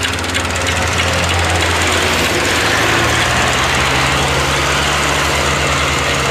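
Farm tractor's diesel engine working hard as it hauls a heavily loaded trolley up a sandy slope, a steady pounding note that rises a little in pitch about halfway through.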